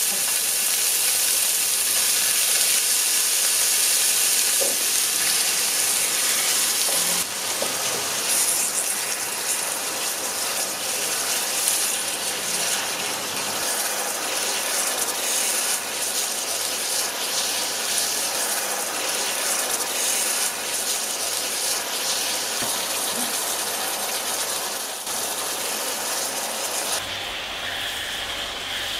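Rice noodles and sauce sizzling steadily in a hot oiled frying pan as they are stir-fried; the hiss thins near the end.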